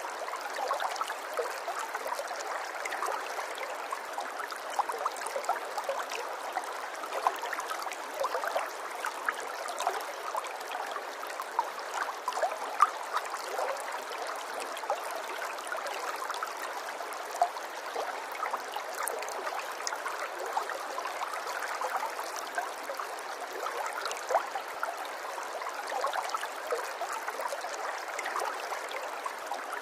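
A small stream trickling and gurgling steadily, with many small splashes and bubbles.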